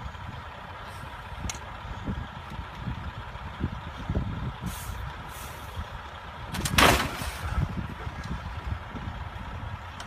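Heavy truck rumbling through blowing snow, with wind buffeting the microphone. A loud hiss comes about seven seconds in.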